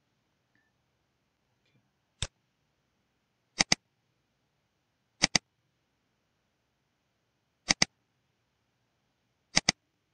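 Computer mouse button clicking: one single click, then four double-clicks about two seconds apart, opening folders one after another.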